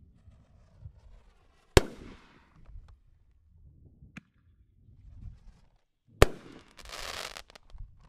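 Consumer aerial firework shots going off: two loud, sharp bangs about four and a half seconds apart, with a fainter crack between them. The second bang is followed by about a second of crackling.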